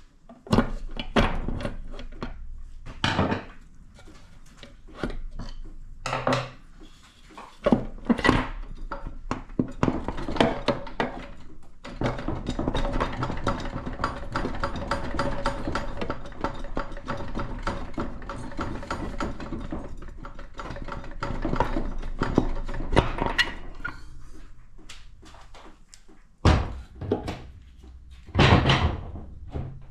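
Metal knocks and clunks of tools and parts as an automatic transmission is taken apart, with a long stretch of fast, even clicking in the middle.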